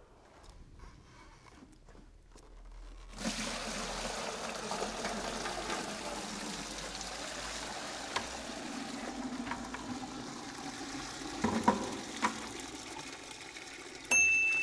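Water poured from a bucket into a clear container and gushing out through the container's bottom into a bucket below, a steady splashing that starts about three seconds in. A loud, high, steady beep starts near the end.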